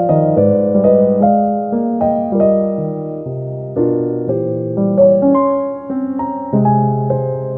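Slow piano music: a melody of single notes over held chords, each note struck and left to fade.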